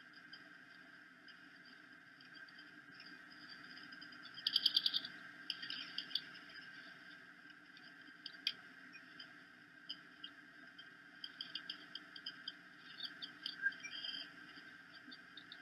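High, thin chirps and squeaks from bald eagles at the nest while a fish is being torn up for feeding. There is a quick run of about eight chirps about four and a half seconds in, then scattered single squeaks and short clusters, over a steady low hum.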